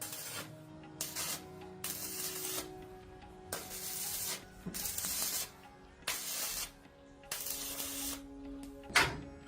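Short bursts of pressurised spray hissing, about seven in a row, each lasting up to a second, with a sharp tap near the end.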